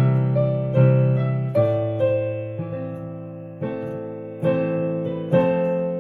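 Piano chords played one after another in a chord-practice exercise, each struck and left to fade, about one a second, with a slightly longer held chord in the middle.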